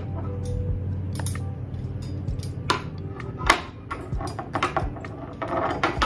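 Black metal wire parts of a cookbook holder clinking and tapping against each other and the countertop as they are fitted together: a string of sharp clicks, the loudest about three and a half seconds in. A low hum runs underneath and fades about halfway.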